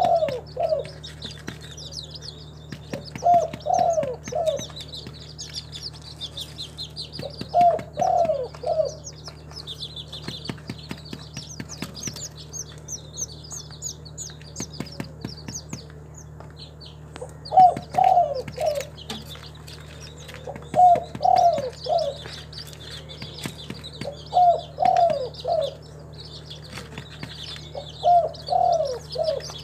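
Spotted dove cooing: seven short phrases of a few notes each, one every three to four seconds, with a long pause midway. Other small birds chirp high throughout, over a steady low hum.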